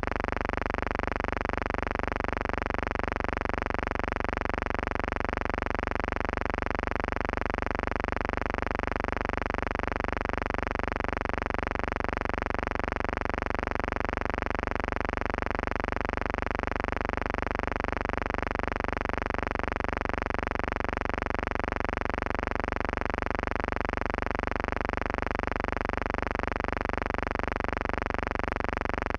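A steady, unchanging electrical buzz made of many evenly spaced tones, with a faint even pulse about twice a second. It is an added soundtrack hum, not the sound of the aircraft or the explosions, since the gun-camera film is silent.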